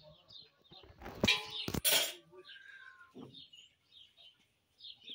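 Small birds chirping over and over, high and short, with a loud rustling burst for about a second starting about a second in.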